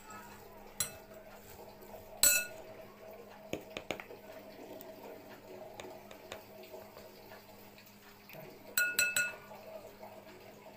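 Metal spoon clinking against a glass mixing bowl: a few sharp clinks with a short ring, the loudest about two seconds in and a quick cluster near the end, over a faint steady hum.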